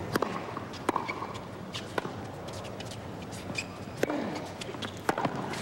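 Tennis ball struck by rackets in a rally on a hard court: a serve and several sharp pops of ball on strings, unevenly spaced, with short high shoe squeaks between them over a low crowd hush.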